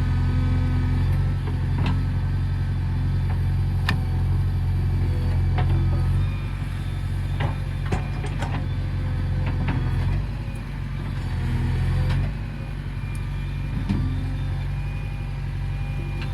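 JCB 3DX backhoe loader's diesel engine running steadily, easing off briefly twice as the load changes, with sharp metallic clanks now and then from the digging.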